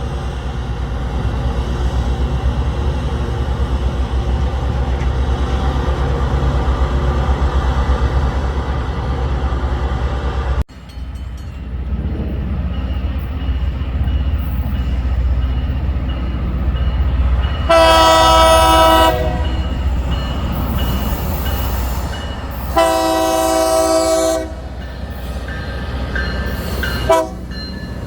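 Heavy diesel rail equipment rumbling steadily at first. After a cut, a train's air horn sounds two long blasts about five seconds apart and a short one near the end, the opening of a grade-crossing horn signal, over the rumble of the passing train.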